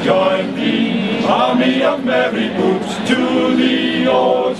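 Male voice choir singing a cappella, several voices holding long notes together in harmony.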